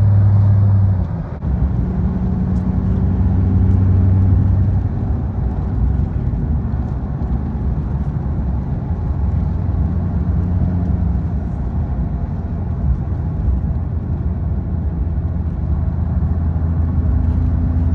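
Steady low drone of a car driving, heard from inside the cabin: engine and road noise.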